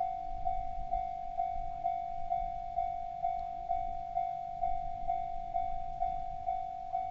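Japanese level-crossing warning bell ringing a single repeated ding, about two strikes a second, each strike fading before the next.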